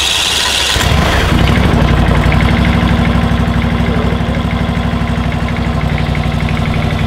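John Deere riding lawn tractor's engine being started with the key: the starter cranks it briefly and it catches about a second in, then runs steadily with an even, rapid firing beat.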